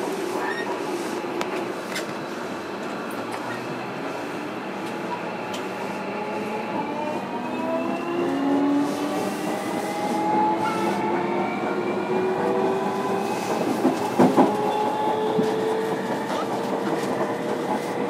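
A JR Kyushu 305 series electric train running, its VVVF inverter and permanent-magnet traction motors giving several whining tones that climb steadily together as the train accelerates, over constant wheel-on-rail noise. A couple of sharp clacks come about three quarters of the way in.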